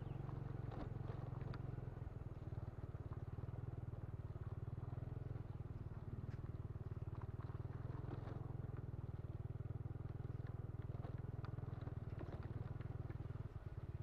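Motorcycle engine running at low revs, a steady low rumble, with faint scattered clicks above it.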